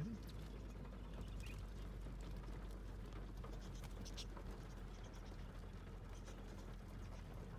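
Feet of a flock of wild budgerigars pattering and scratching on the car's bonnet and windscreen, with a few faint high chirps, heard from inside the car.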